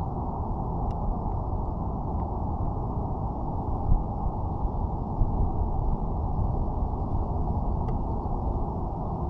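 Strong, steady wind buffeting the microphone: a dense low rumble, with a few faint clicks.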